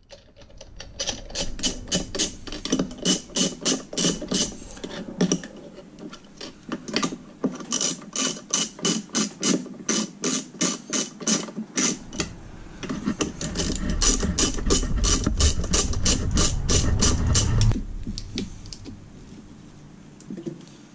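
Socket ratchet clicking in quick runs, about five clicks a second, as bolts holding the throttle body are loosened. A low rumble lies under the last run of clicks.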